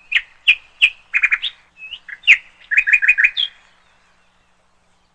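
Bird chirping: a quick run of short, sharp chirps, some falling in pitch, stopping about three and a half seconds in.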